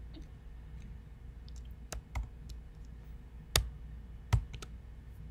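A handful of separate computer keyboard key clicks, irregularly spaced, as keys are pressed one at a time.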